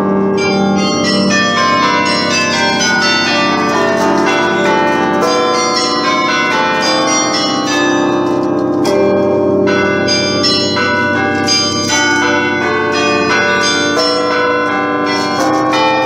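The carillon of the Belfry of Bruges playing a melody: many tuned bells struck one after another at different pitches, each ringing on under the next.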